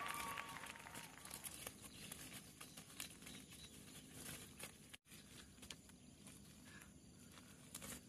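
Faint rustling and crinkling of a mesh fish-trap net and the fish being handled, with scattered light clicks. The sound cuts out for a moment about five seconds in.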